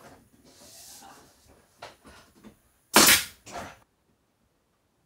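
Pneumatic nail gun firing twice into ceiling paneling, two sharp cracks half a second apart about three seconds in, after a faint hiss and a light knock.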